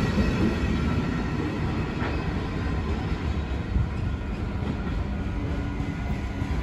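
Freight train's empty flat wagons rolling past on the rails with a steady rumble, then Adelaide Metro 3000-class diesel railcars running as they approach the station.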